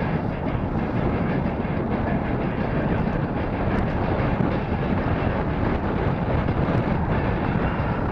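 Steady wind rumble on the microphone of a bicycle-mounted camera, with tyre and road noise from the moving bike.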